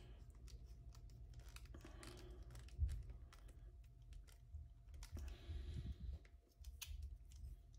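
Faint clicks and taps of a plastic phone mount and a metal grip bracket being handled, slid into place and tightened down, with a louder knock about three seconds in and a few dull thumps a little later.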